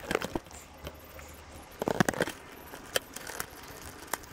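Scattered clicks, knocks and light scrapes of a motorcycle headlight assembly being pushed and seated, its tabs going into the top fender; a small cluster of clicks about two seconds in and sharp single clicks near three seconds and near the end.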